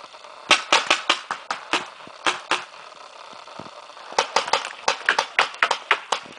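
Paintball marker firing rapid shots in two volleys of sharp pops, about four to five a second: one volley of roughly nine shots, a pause, then a longer volley of about a dozen.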